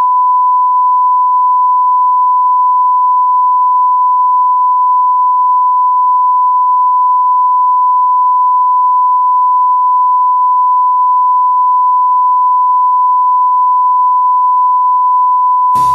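Broadcast 1 kHz line-up test tone that goes with colour bars: a single loud, steady beep held without a break.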